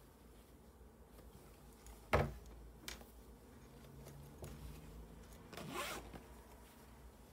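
A phone is handled into a plush fabric phone pouch, and the pouch is zipped. A sharp tap comes about two seconds in, the loudest sound, with a lighter click just after it. A short zip follows about six seconds in.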